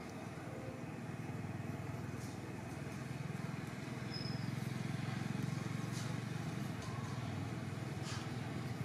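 Low engine rumble of a motor vehicle passing at a distance, growing louder toward the middle and easing off slightly near the end.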